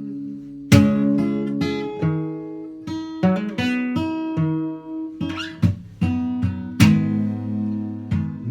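Acoustic guitar strummed and picked in an instrumental passage: chords struck with sharp attacks, ringing between strokes.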